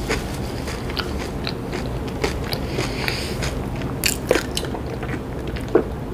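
Close-miked mouth sounds of eating: chewing with scattered small clicks. About four seconds in she starts sipping a drink through a straw, and a couple of sharper clicks come then and near the end, all over a steady low background hum.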